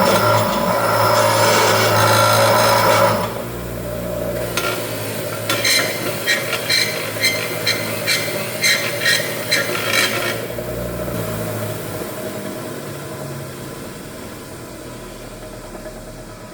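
A power tool runs loudly and stops about three seconds in. A series of about a dozen sharp tool taps follows, about two a second, before things die down.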